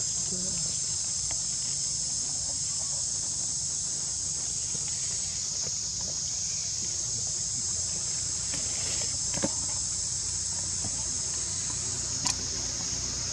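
Steady high-pitched chorus of insects in the forest canopy, with two short sharp clicks, about nine and a half and twelve seconds in.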